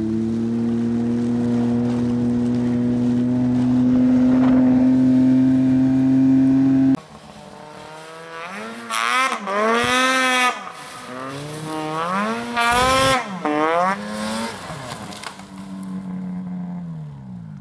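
Snowmobile engine running at a steady high speed, cut off abruptly about seven seconds in, then a snowmobile engine revving up and down several times, its pitch rising and falling, before settling and winding down near the end.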